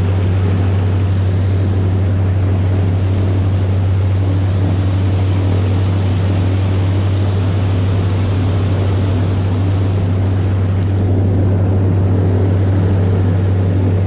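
Airboat's engine and aerial propeller running loudly and steadily.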